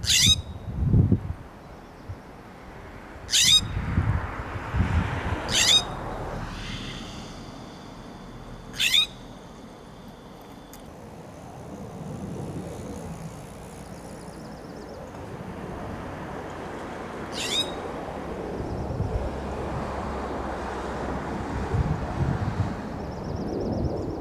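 California scrub jay giving harsh scolding calls. There are five short calls, each a sharp downward-sweeping rasp, spaced a few seconds apart, with a long gap before the last one. Low wind rumble and thumps sit underneath.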